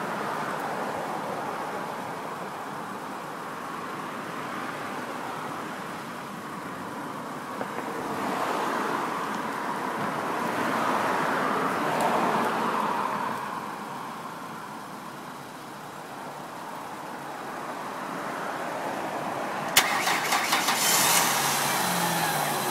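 Car engine running during a jump-start, the jumped car started off another car's battery through jumper cables. The engine noise swells about a third of the way in and eases off, and a few sharp clicks come near the end.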